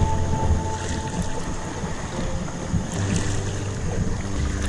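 Water sloshing and splashing around an inflatable kayak as it is paddled at sea, with wind on the microphone. Background music with sustained notes plays over it.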